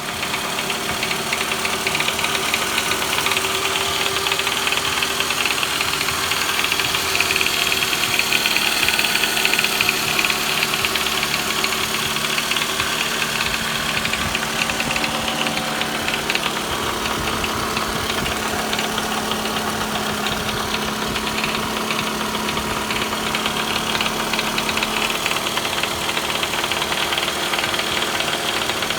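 Toyota Vellfire's 2AZ-FE 2.4-litre inline-four idling steadily with a fast, continuous rattling noise. A new timing chain did not cure it; the mechanic traced it to the balance shaft, since the noise went away with the shaft removed.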